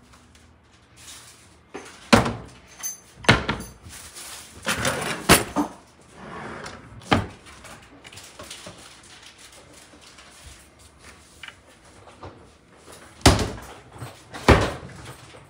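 Cupboard and cabinet doors being opened and shut, about half a dozen sharp knocks and clacks. Most come in the first seven seconds, and two louder ones come near the end.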